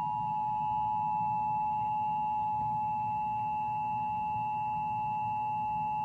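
Emergency Alert System attention signal: the steady two-tone alert tone held without a break, marking the start of a required monthly EAS test broadcast.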